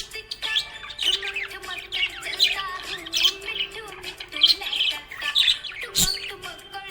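Budgerigar chirping and warbling in quick, busy runs of high squawks and tweets, over background music holding a steady low note. A sharp click about six seconds in.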